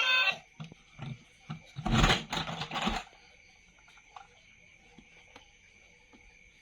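Background music cuts off just after the start. Scattered light knocks and clicks follow, then a loud rustling, clattering burst lasting about a second. After that comes quiet room tone with a faint thin whine.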